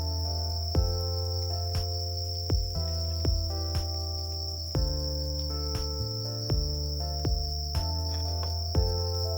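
Crickets chirring steadily under background music: a slow melody of held notes over a bass line, a new note struck about once a second.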